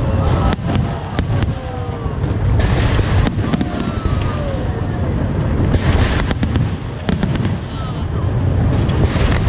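Fireworks display going off continuously: sharp cracks and bangs over a deep rolling rumble, with crackling surges about two and a half, six and nine seconds in.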